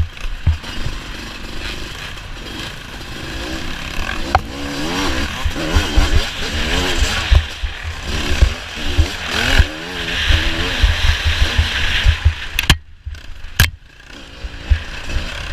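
Dirt bike engine revving up and down over and over as the bike is ridden hard, with rumble and thumps through the mic. The sound drops out briefly about thirteen seconds in.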